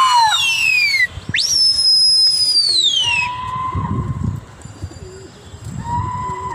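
Loud, shrill human whistling of the kind pigeon flyers use to work their flock: a whistle sliding down in pitch, then a long high whistle that rises sharply, holds and falls away about three seconds in, followed by two softer, steady, lower whistle notes.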